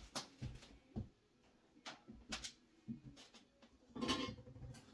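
Scattered light knocks and clicks of someone moving about a kitchen, footsteps on a wooden floor and things handled at the counter, with a brief longer rustle or scrape about four seconds in.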